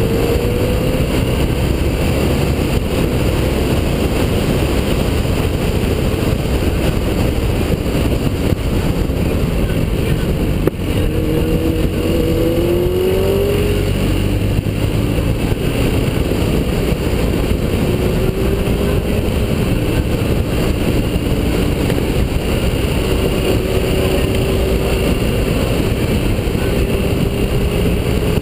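A BMW RT touring motorcycle on the move: heavy wind and road noise on the bike-mounted camera. Under it, the boxer-twin engine's note faintly rises in pitch a few times as the bike accelerates.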